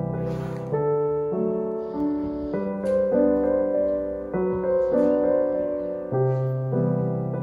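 Background piano music: slow, gentle sustained chords changing about once a second.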